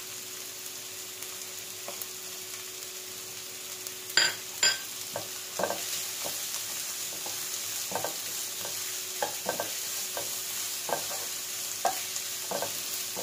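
Diced carrots and aromatics sizzling in hot oil in a non-stick kadai. From about four seconds in, a wooden spatula scrapes and knocks against the pan in irregular strokes as they are stirred.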